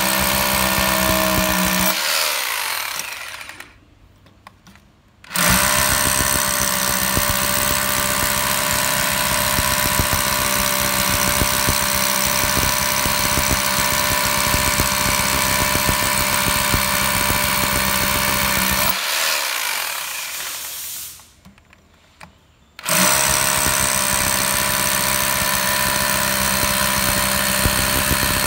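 Dong Cheng corded impact drill hammering a masonry bit into a concrete slab: a loud, rapid hammering clatter over the motor's run. It winds down and stops twice, about two seconds in and about nineteen seconds in, each time for about three seconds, and starts again abruptly.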